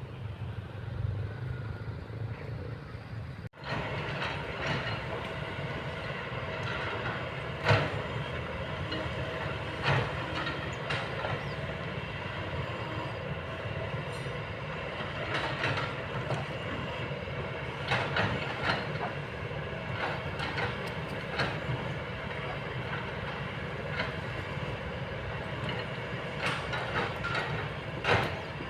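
Kobelco long-boom excavator working: its engine and hydraulics run steadily with a whine, while sharp metallic clanks come every few seconds, the loudest about eight seconds in and just before the end.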